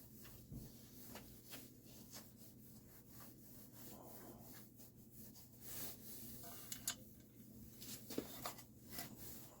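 Faint handling noises: scattered light clicks, taps and rubbing, with a few sharper ticks in the second half, over a low steady hum.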